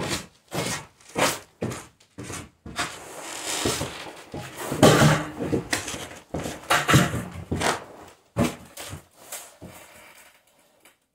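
Handling noise: a rapid string of knocks and thumps mixed with rustling of clothing as a man moves around and grabs a large wolf carcass hung by its legs, tailing off near the end.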